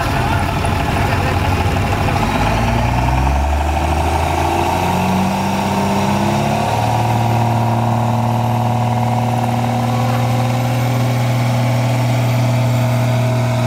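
Dodge pickup's Cummins turbodiesel under full load, pulling a weight sled. Its revs climb over the first several seconds, then hold steady and high for the rest of the pull.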